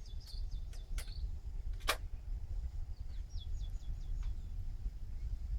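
Wind rumbling on the microphone. A small bird chirps in two short runs of quick high notes, and there are a few sharp clicks around one and two seconds in.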